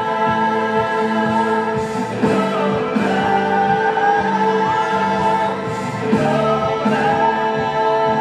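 Musical-theatre song: a chorus of voices singing held chords with musical backing, the chords changing twice.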